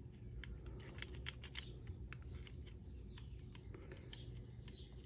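Faint, irregular light clicks and taps of small carburetor parts being handled as the float is worked out of a Briggs & Stratton mower carburetor, over a low steady hum.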